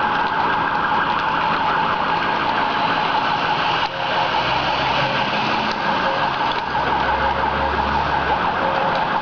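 Police vehicle siren sounding a steady high tone over loud street noise.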